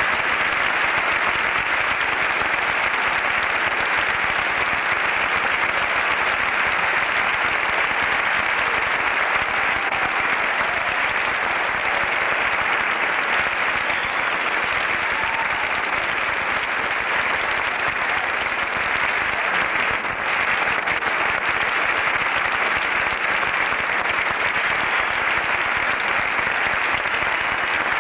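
Large audience applauding steadily, a dense even clapping that carries on without a break.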